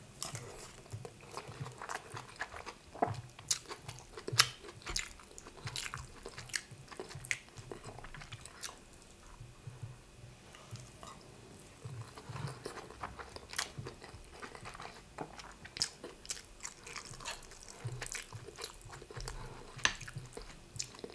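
Close-miked chewing of a mouthful of rice and egusi soup, with many irregular wet mouth clicks and smacks.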